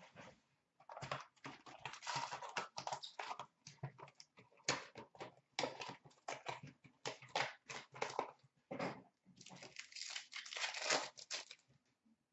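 Wrappers crinkling and tearing in irregular bursts as a box of Upper Deck Trilogy hockey cards is opened and its packs are ripped open.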